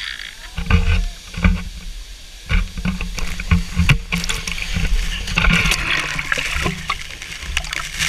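A person wading into a pool, with heavy knocks and thumps from the handheld camera being jostled, and water splashing and sloshing that grows busier from about five seconds in.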